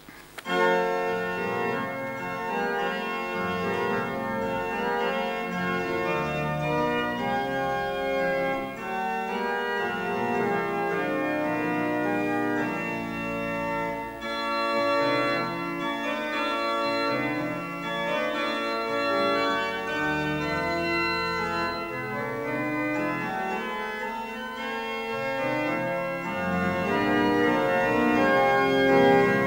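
Church organ playing a hymn tune in sustained chords that shift every second or so, starting suddenly about half a second in.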